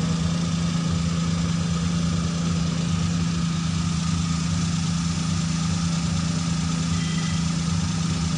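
Maruti Suzuki Alto 800's three-cylinder petrol engine idling steadily, heard from beneath the car.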